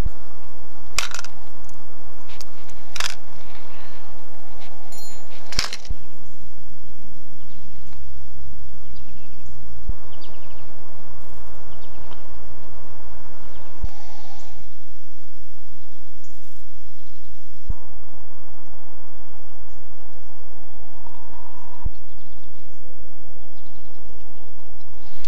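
Hands handling fishing lures and a plastic tackle box, with a few sharp clicks in the first six seconds over a steady low rumble.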